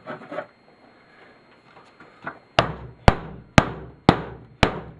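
Hammer striking the aluminium housing of a power strip to knock it apart: a light tap, then five sharp blows at about two a second, starting about halfway through.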